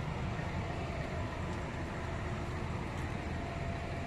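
Steady low mechanical rumble of a diesel locomotive engine idling, with a faint steady hum over it.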